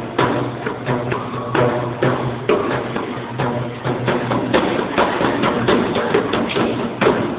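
Percussion music on hand-held frame drums: quick, uneven beats over a steady low hum.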